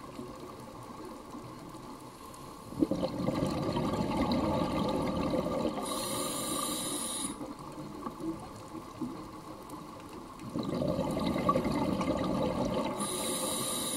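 A scuba diver breathing through a regulator underwater: two breaths, each a few seconds of exhaled bubbles rushing and gurgling, with a short hiss near the end of each, and a quieter pause between them.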